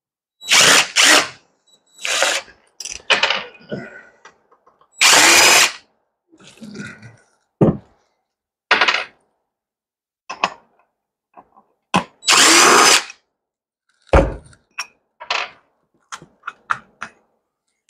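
A power drill-driver running in a dozen or so short bursts, the longest just under a second, with small clicks between, backing out the metric bolts that hold the rider's back pad.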